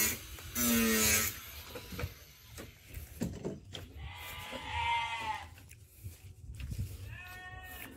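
Sheep bleating: a loud low bleat about half a second in, a higher, falling bleat around four seconds in and a short one near the end, with soft footsteps on dirt between.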